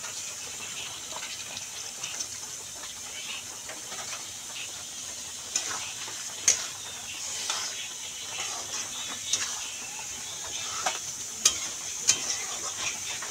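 Small fish frying in masala in a steel kadhai with a steady sizzle. A metal spatula scrapes and clinks against the pan as the fish are turned and coated, with the sharpest clinks in the second half.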